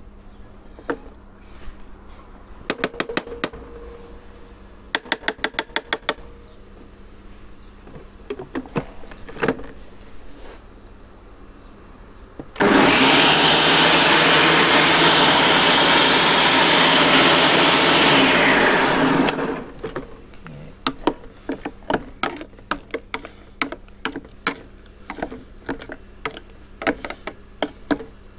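Ninja Smart Screen blender motor running for about six and a half seconds in the middle, blending thick mayonnaise with crumbled bacon, then cutting off. Before and after it come clicks and knocks of handling the plastic jar and lid.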